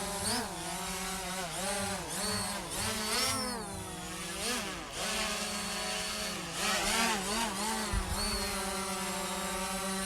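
Tolatoyus IDEA16 quadcopter drone's brushless motors and propellers whirring in flight, the pitch swinging up and down again and again as the motors change speed.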